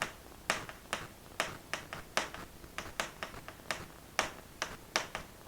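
A run of sharp, irregular taps and clicks, about three a second, from a pen or chalk striking a board or writing surface during writing.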